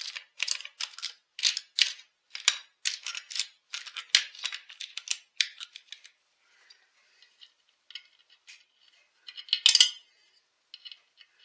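Small metal parts and tools clinking and rattling as they are rummaged through on a workbench. A dense run of sharp clinks lasts about six seconds, then they come sparser, with a louder clatter about ten seconds in.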